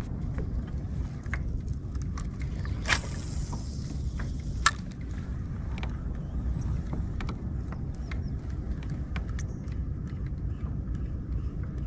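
Spinning reel being cranked to retrieve a cast lure, its gears ticking and clicking, with a sharper click about 3 s in and again a couple of seconds later, over a steady low rumble.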